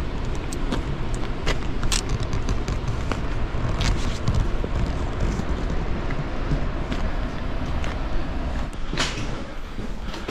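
Wind buffeting the microphone: a steady low rumble, with scattered sharp clicks and one louder click about nine seconds in.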